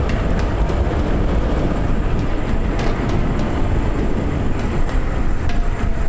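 Bicycle riding noise: wind rushing over the microphone and tyres rumbling on the road, with scattered sharp clicks and rattles from the bike.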